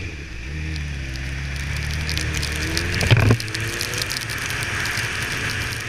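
Honda CBR1000RR's inline-four engine pulling away, its note rising, with a short loud burst about three seconds in before it rises again. Under it a hiss of wet tyres, rain and wind builds.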